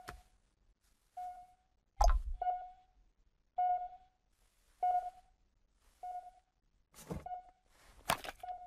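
Electronic beeping from a holographic device interface: a single short mid-pitched tone repeating about every 1.2 seconds. A dull thud comes about two seconds in, and near the end there are sharp clicks as a case of small vials is handled.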